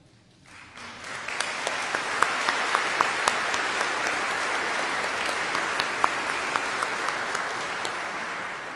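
Audience applauding: the clapping swells up within the first second or so, holds steady with single sharp claps standing out, and dies away near the end.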